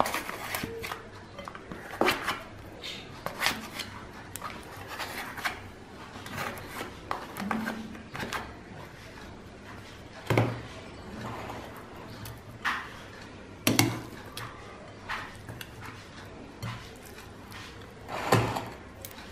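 A steel serving spoon scraping and tapping against a foil takeaway box and a ceramic plate while rice is spooned out, with handling of the foil and plastic wrapping. The knocks come irregularly, and the sharpest are about two, ten, fourteen and eighteen seconds in.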